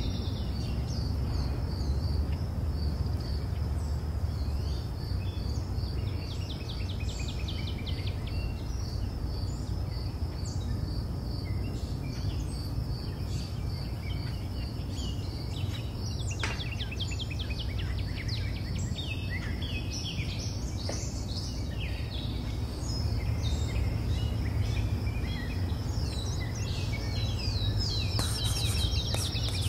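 Nature ambience: a steady, pulsing high insect trill with scattered short bird chirps over a low steady rumble.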